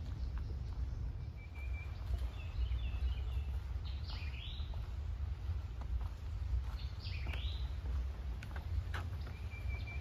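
Wild birds calling in woodland, with two loud down-slurred calls about four and seven seconds in and a few twittering and whistled notes between. Beneath them are light footsteps on a dirt trail and a steady low rumble.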